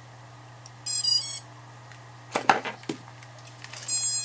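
Small FPV quadcopter's brushless motors beeping as a LiPo battery is plugged in: a quick run of stepped startup tones about a second in, a short rustle of handling, then more beeps starting near the end.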